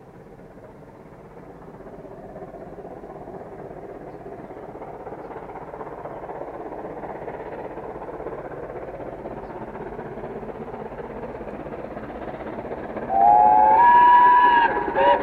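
A Britannia class 4-6-2 steam locomotive approaching, its running noise growing steadily louder. About thirteen seconds in its whistle sounds loudly for about two seconds, rising in pitch, then gives a brief second blast near the end.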